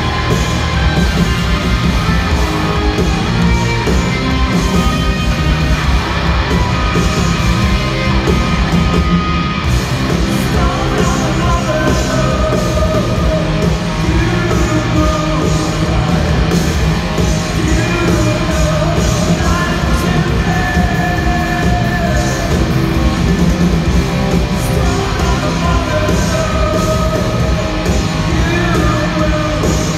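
A live rock band playing loud: electric guitars over drums and cymbals, heard from the audience in a large hall.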